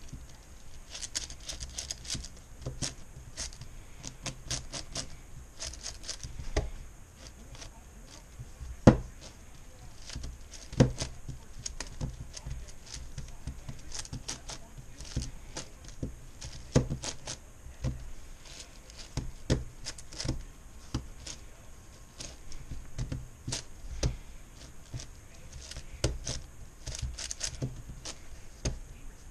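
MoYu Meilong 10x10x10 puzzle cube being turned one-handed during the centers stage: a quick, irregular run of plastic clicks and clacks as layers are turned, with a few sharper clacks, the loudest about nine seconds in.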